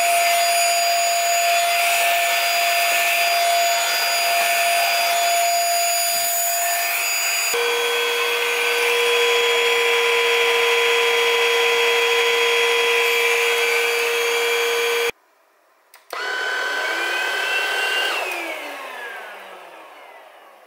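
Cordless stick vacuum cleaner motor running with a steady whine, its pitch jumping to a lower note about a third of the way in. After a short break it runs again with a higher whine, then winds down with falling pitch and fades away over the last few seconds, as when it is switched off.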